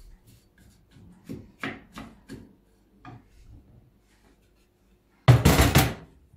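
A wooden spoon scraping and knocking in a pan as sliced vegetables are stirred, a few soft strokes. About five seconds in comes a louder rasping scrape of kitchenware, under a second long.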